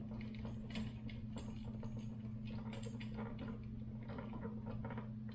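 A screwdriver turning down the terminal screw that clamps the neutral wire on the back of a smart light switch: small irregular clicks and ticks throughout, over a steady low hum.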